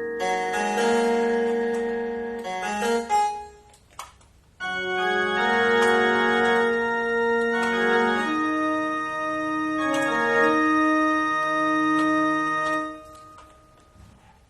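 Roland EP-7 digital keyboard playing held chords on an organ-like voice, the notes sustaining steadily without decaying. It plays a short phrase, breaks off briefly about four seconds in, then plays a longer chord passage that fades out near the end.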